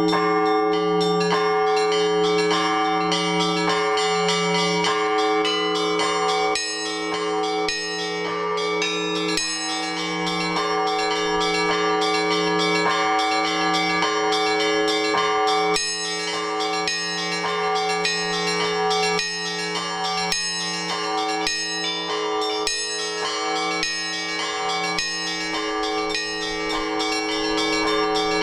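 Russian Orthodox church bells rung by a bell ringer in the belfry: rapid, rhythmic strikes on the smaller, higher bells over the steady, sustained hum of larger, deeper bells, without a pause.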